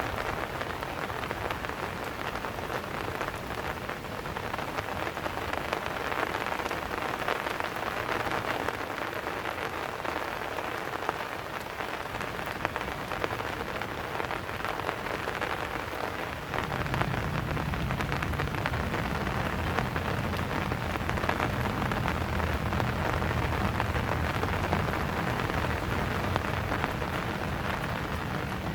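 Steady rain falling, a hiss of many fine drop hits. About halfway through, a low rumble joins in and the sound gets a little louder.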